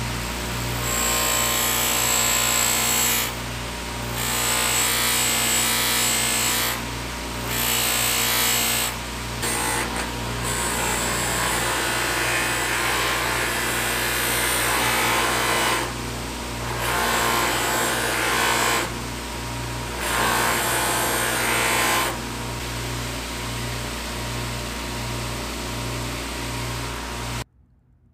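A power tool runs steadily with a motor hum. Its abrasive noise swells in repeated passes of one to three seconds as it is worked against the piece and eases between them, then cuts off abruptly near the end.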